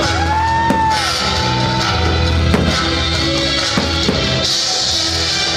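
Loud rock music accompanying a fireworks display, with a few short sharp bangs standing out.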